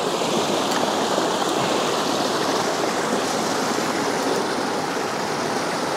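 Flowing trout stream, its current rushing steadily.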